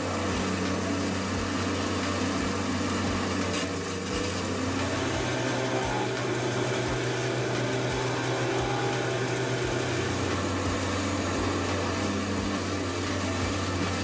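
Morbark 1300 tub grinder running steadily under load as it grinds brush, a low steady hum that rises a little in pitch for several seconds midway, with faint regular low thumps.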